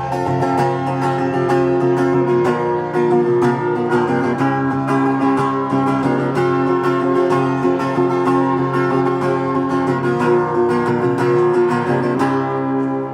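Live instrumental passage of strummed guitar with other plucked strings, played steadily without singing.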